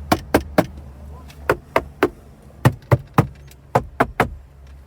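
Knuckles rapping on the Holden Commodore's interior trim to test its build quality: about a dozen sharp knocks, in four quick sets of three.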